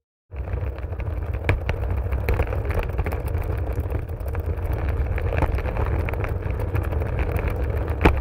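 Wheeled luggage trolley rolling steadily: a continuous low rumble of the wheels with frequent small clicks and rattles, a few sharper knocks among them.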